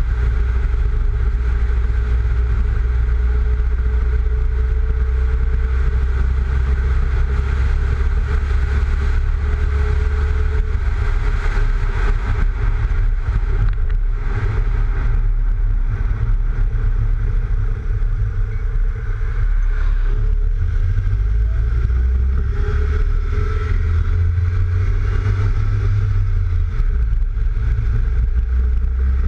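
Wind rumbling over the microphone of a camera mounted low on the outside of a lowered Mk3 VW Golf while it drives, with the car's engine and tyre road noise underneath.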